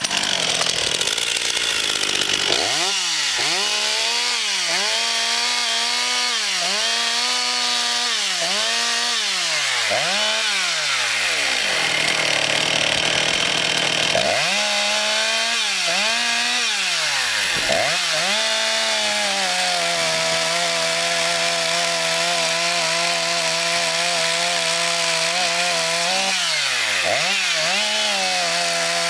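Husqvarna 238 two-stroke chainsaw starting and being blipped up and down on the throttle, about once a second, then held at steady high revs as it cuts a thin cookie off the end of a log, with one brief dip in revs near the end.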